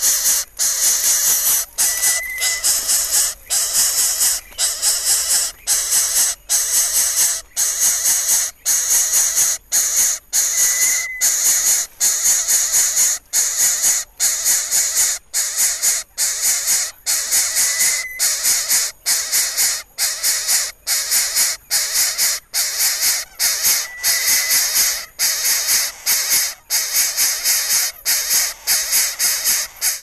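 Greater coucal nestling hissing: a steady run of long, loud hisses, each cut by a brief breath, about one to two a second, the defensive hiss these chicks give when disturbed. Now and then a short faint whistled note sounds behind it.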